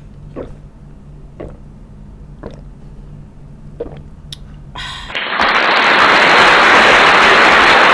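A person gulping water, four swallows about a second apart over a faint low hum. About five seconds in, a loud steady hiss of noise cuts in and holds.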